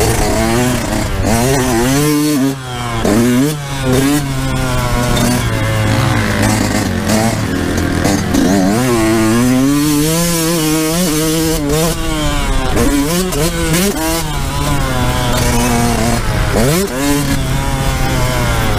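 Yamaha YZ125's 125cc two-stroke single-cylinder engine ridden hard, its pitch climbing and falling over and over with the throttle. It drops briefly off the throttle about two and a half and four seconds in, and revs up sharply near the end.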